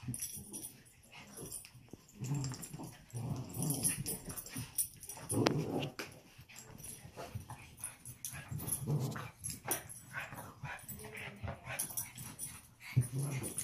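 Two puppies play-fighting, growling in short irregular bursts as they wrestle.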